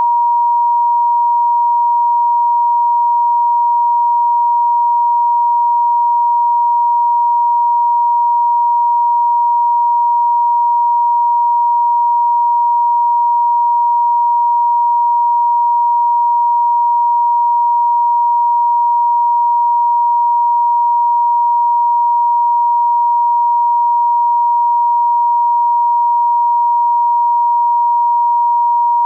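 Italian landline off-hook tone: a single continuous high-pitched tone of about 1 kHz, meaning the receiver has been left off the hook after the call ended.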